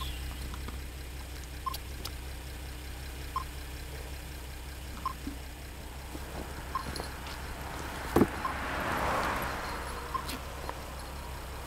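A backpack and water bottle being handled: a single sharp knock about eight seconds in, then rustling. Under it runs a faint short beep that repeats about every second and a half to two seconds.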